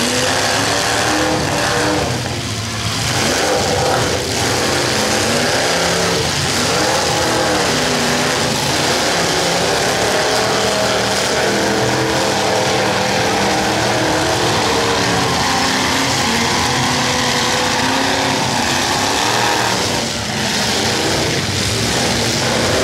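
Several demolition derby cars' engines running and revving at once, their pitches rising and falling as the cars accelerate and back off.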